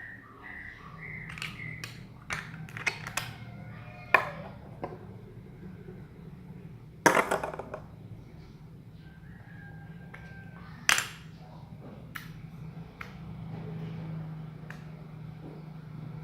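Handling noises of small objects and containers: scattered sharp clicks and knocks, with two louder, short crackling rattles about seven and eleven seconds in, over a steady low hum.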